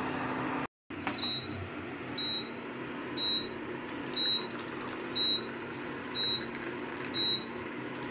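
Induction cooktop giving short high warning beeps about once a second, the signal that no pan is on the hob while the pot of boiled water is lifted off, over a steady low hum.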